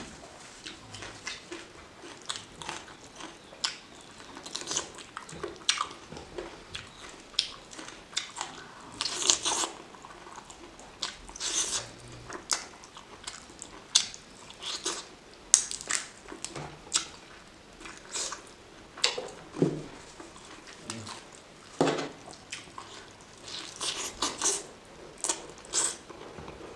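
Close-miked eating: a woman chewing and biting into chicken curry with rice, with wet mouth clicks and smacks coming at irregular intervals and a few louder bites.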